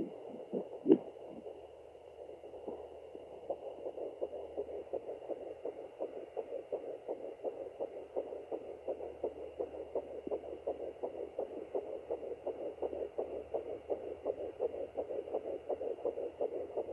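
Fetal doppler picking up a fetal heartbeat at 10 weeks 5 days of pregnancy: a fast, even pulse that comes in a few seconds in and holds steady. A single loud knock about a second in, before the pulse is found.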